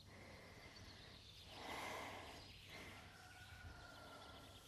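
Near silence: faint outdoor background noise, with a soft swell of noise about two seconds in.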